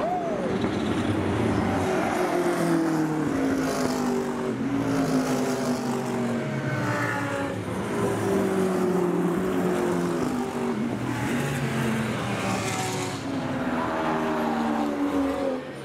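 Race car engines running hard on the track, their pitch sliding down and climbing again several times as the cars shift and pass.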